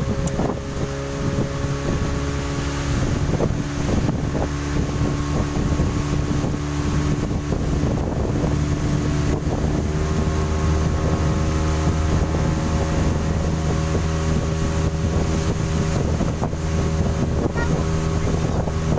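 Speedboat's outboard motor running steadily at cruising speed, with wind buffeting the microphone.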